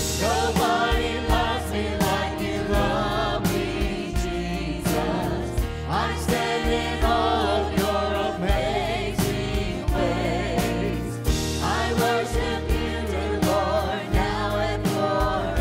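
Live contemporary worship song: a group of singers on microphones sing together in full voice over a drum kit keeping a steady beat and keyboard accompaniment.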